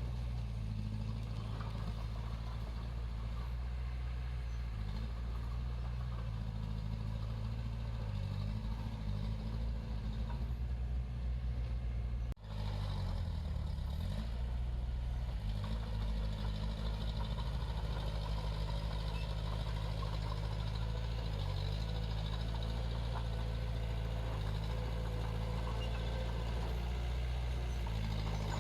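Heavy-equipment diesel engine running steadily under work. About twelve seconds in the sound cuts out for an instant, and the engine pitch then dips and rises briefly before it steadies again.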